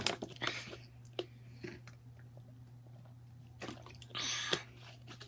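Mouth rinse with water: small wet clicks and swishing, with a louder splashy burst about four seconds in, over a steady low hum.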